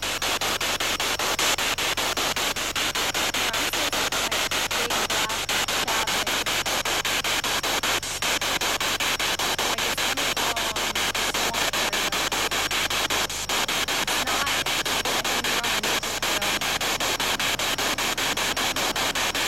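SB7 spirit box sweeping through radio stations: steady, rapidly chopped static, with faint brief snatches of broadcast sound now and then.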